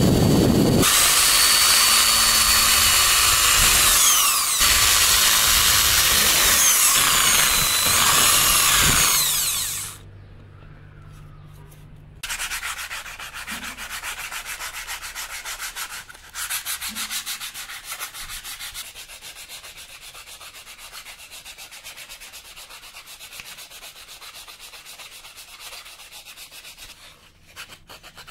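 A loud power tool runs with a shifting whine for about the first ten seconds, then stops. After a short pause, teak wood is sanded by hand in steady, even rubbing strokes.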